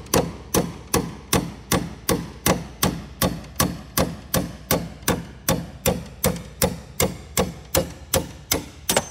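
Hammer striking a pin punch to drive out the roll pin at the upper attach point of a Cessna 150 nose gear oleo strut. The blows fall in a steady, even rhythm of about two and a half a second.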